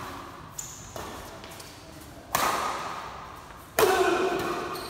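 Shuttlecock struck back and forth by badminton rackets in a doubles rally: two light hits early, then two hard hits about a second and a half apart, each ringing off the hall walls.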